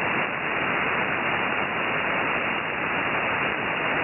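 Shortwave receiver hiss: steady static on an open upper-sideband aeronautical channel between transmissions, with the high end cut off sharply by the receiver's narrow filter.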